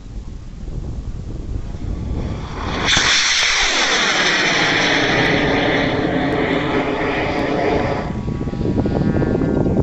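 Cesaroni L995 solid rocket motor igniting about three seconds in and burning loudly as the high-power rocket climbs away, the noise sweeping downward in pitch as it rises. It cuts back after about five seconds, leaving wind.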